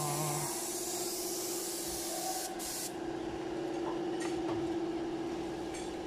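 Air-fed paint spray gun hissing as it sprays enamel paint, the hiss cutting off about halfway through. A steady motor hum continues underneath.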